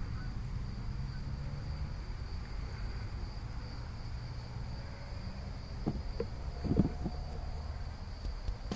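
Crickets chirping in one steady, high, unbroken trill over a low rumble, with a few faint rustles about six to seven seconds in.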